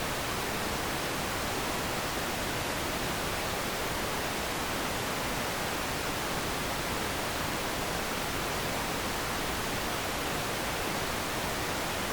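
Steady static hiss, an even noise with no tone or rhythm, played as a glitch or noise sound effect.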